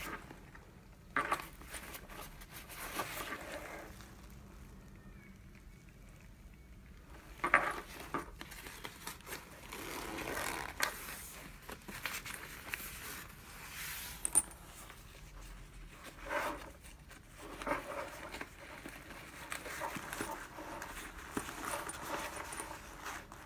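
Xiaomi 17L fabric backpack being handled: irregular bursts of fabric rustling and scraping as its compartments and zippered pockets are opened, with a few sharp clicks, the loudest about seven and a half seconds in.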